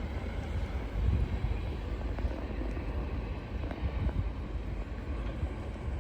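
Metro-North commuter train running past, a steady low rumble with faint rail noise above it.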